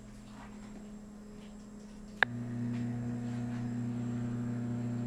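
Microwave oven starting to heat: a faint hum, then a sharp click a little over two seconds in, after which a louder steady hum runs as the oven heats the food.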